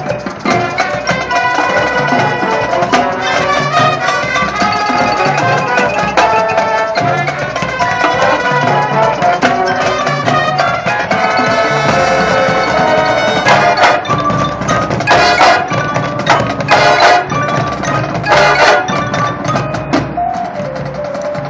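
High school marching band playing its field show: held ensemble chords, then from about two-thirds of the way through a run of sharp, punctuating percussion hits.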